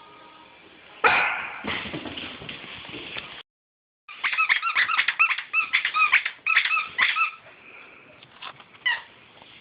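A puppy yipping and whining in a quick run of short, high, rising-and-falling calls, about three or four a second. Before that comes a loud, rougher burst, and the sound cuts out completely for a moment in between.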